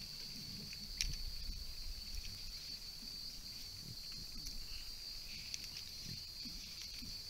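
Steady high-pitched insect chorus, with faint rustling and one sharp click about a second in.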